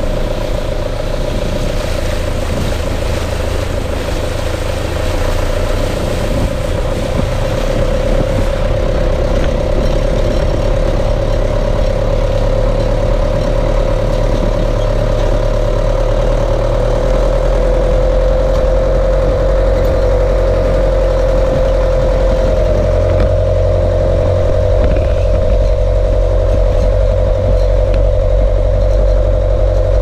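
Old Jeep-style 4x4 driving off-road at low speed: its engine runs steadily with a low rumble, under a steady whine that lasts throughout.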